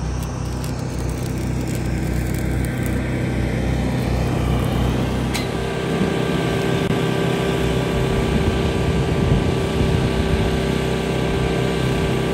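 An engine running steadily, its tone shifting slightly about six seconds in, with a single sharp click a little after five seconds.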